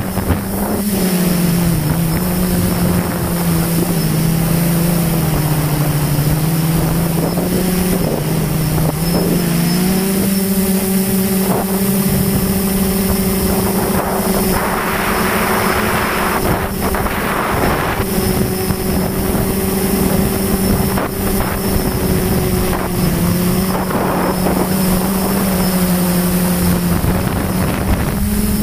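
RC aircraft's motor and propeller humming steadily, heard from the onboard camera. The pitch drops for several seconds, then rises about ten seconds in as the throttle comes up and holds there. Gusts of wind rush past the airframe for a few seconds around the middle.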